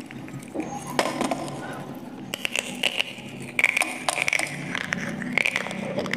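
Dry baked clay crunching as it is bitten and chewed: a sharp snap about a second in, then a run of dense, crackling crunches.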